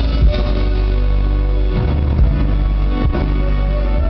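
Live band playing an instrumental pop piece with keyboards, piano, guitars and drums, heard from the audience in a large concert hall.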